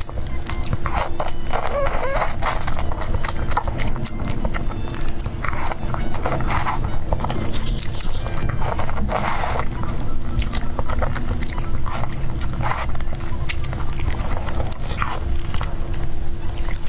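Close-miked chewing and crunching of spicy chicken, with repeated crisp bites and crackles.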